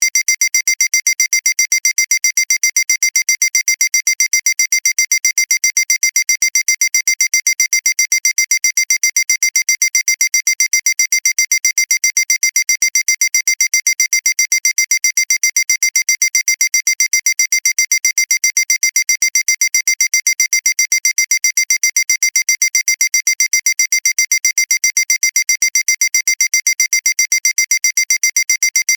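Synthesized electronic beeping sound effect: a high-pitched tone pulsing rapidly and evenly without change, with no low end.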